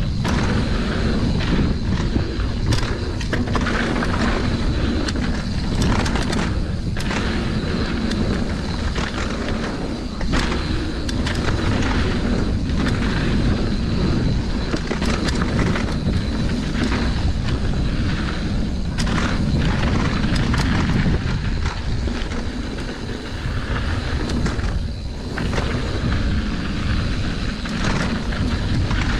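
Mountain bike riding down a dirt flow trail: wind rushing over the microphone and tyres rolling on dirt, with frequent clicks and knocks over the bumps.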